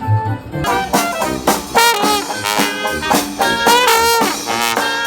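Jazzy brass music with trumpets and trombones playing quick, lively runs of notes. It comes in sharply, brighter and fuller, about a second in, replacing quieter, duller music.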